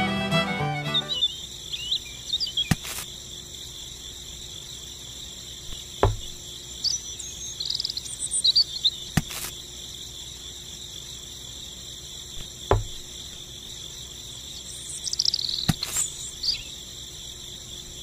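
Crickets chirping in a steady chorus, with a few bird chirps and a sharp pop about every three seconds. Background music fades out about a second in.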